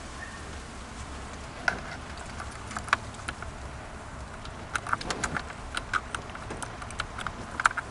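Scattered light clicks and taps at an irregular pace, sparse at first and coming thicker in the second half.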